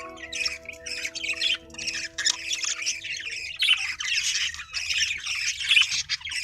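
A flock of lovebirds squawking and chattering continuously, a dense stream of high-pitched calls overlapping one another.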